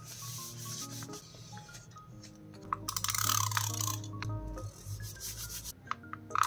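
Hands rubbing and smoothing paper down on a journal page, with one louder, rougher rub about three seconds in that lasts about a second.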